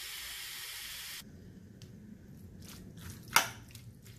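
Marinated mutton liver sizzling in hot masala in a pan; the sizzle stops abruptly about a second in. After that it is quiet, with a few faint clicks and one sharper click about three seconds in.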